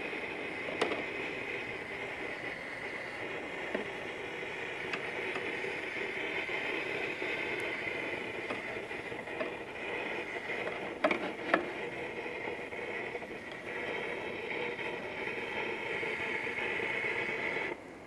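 Slices of rolled lamb-rib kebab sizzling steadily on a hot cooking stone, with a few sharp knocks of metal utensils, a close pair of them about halfway through. The sizzling cuts off abruptly near the end.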